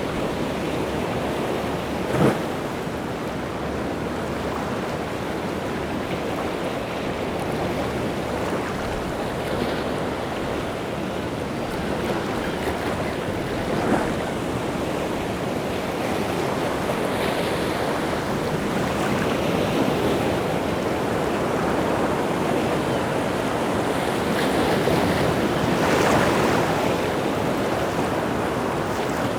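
Rough sea surf breaking and washing continuously, swelling louder toward the end. Two brief sharp thumps cut through, about two seconds in and again about fourteen seconds in.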